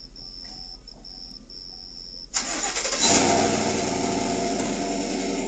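Crickets chirping steadily, then a little over two seconds in a truck engine suddenly cranks and catches, running loudly from about three seconds in.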